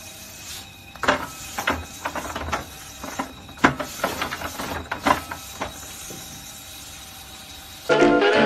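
Motorised rotating cattle grooming brush running against a cow's head: a steady mechanical hiss with irregular knocks and clunks during the first six seconds or so. Music starts near the end.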